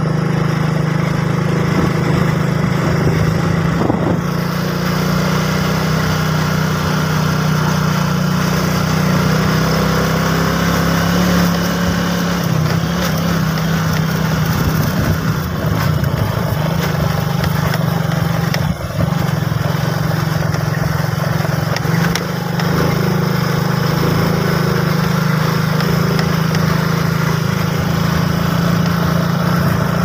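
Motorcycle engine running steadily while the bike is ridden along a road, a constant low hum heard from the rider's seat, with wind and road noise over it.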